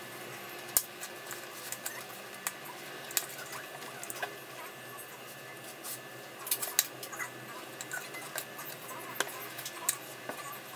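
Hand-handling noises of nylon paracord being braided: scattered light clicks and rubbing as the cord is pulled through and tightened against a small buckle, over a steady hiss.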